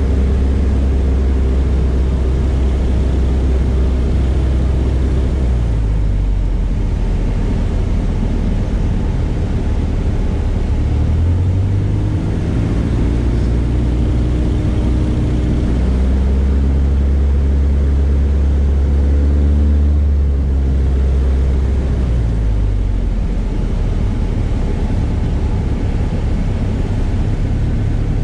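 Single-engine propeller airplane's piston engine and propeller heard from inside the cockpit, running steadily while power is adjusted on the approach to landing: the note drops after about five seconds, rises again around eleven seconds, and drops back to a lower, throttled-back note near the end as the plane reaches the runway.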